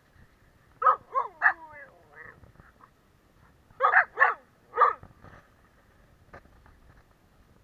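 Large dog play-barking: three barks about a second in, then three more about four seconds in.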